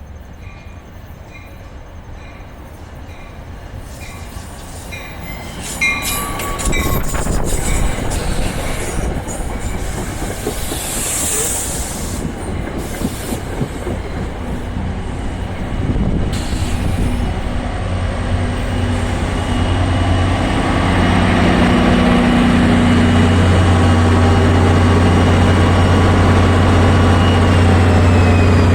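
NJ Transit train approaching on the rails, its wheels rolling and squealing, growing steadily louder. From about two-thirds of the way through, the locomotive's steady low hum takes over as it comes up close.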